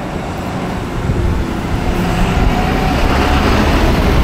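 Heavy road traffic, with lorry engines running close by, growing louder from about a second in.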